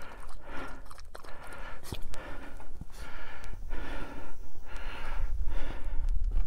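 Miniature Australian Shepherd lapping water from a steel bowl, then panting in a steady rhythm, about two breaths a second.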